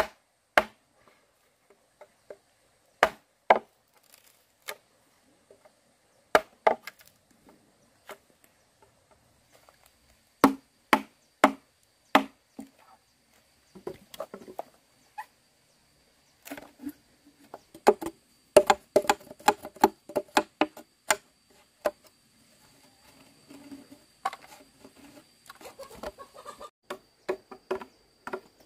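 A series of sharp, irregular chopping knocks, coming faster and denser about two-thirds of the way through, with a faint steady high whine underneath.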